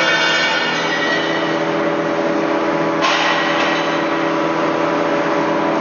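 BOMAR metal-cutting band saw running steadily. Two ringing metallic clangs break in over it, one right at the start and one about three seconds in, each fading over about a second.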